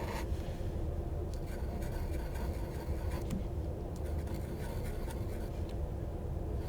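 Scribbling on paper: a drawing tool scratching in short irregular strokes, over a steady low background hum.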